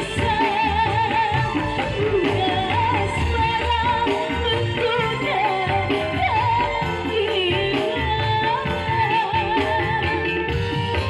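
A woman singing an ornamented, wavering melody into a microphone over electone keyboard accompaniment with a steady beat and bass, played through a PA system.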